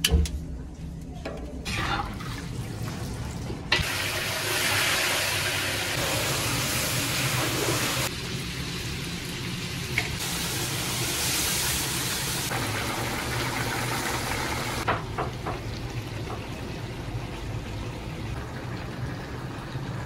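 Hissing of cooking in a large pot, like oil frying and liquid being poured, in a series of short cuts that start and stop abruptly, over a steady low hum.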